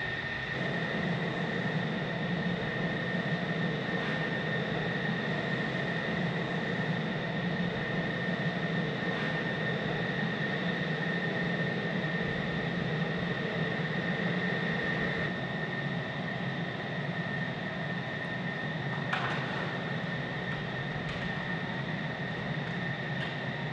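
Steady high-pitched turbine whine over a constant rushing roar, typical of jet engines or gas-turbine ground equipment running at a fighter jet base. A sharp click sounds about three-quarters of the way through.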